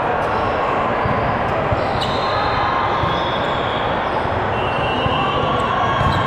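Basketball being dribbled and bouncing on a gym court during a game, over a steady din of voices in the hall, with a few short high squeals.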